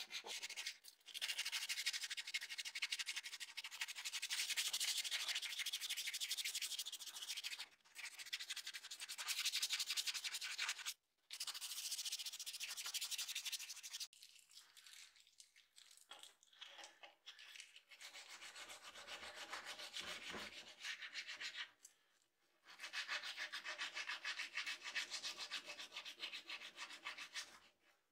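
Abrasive paper rubbed rapidly back and forth by hand on the steel face of a hammer head, scouring off rust, in several spells broken by short pauses.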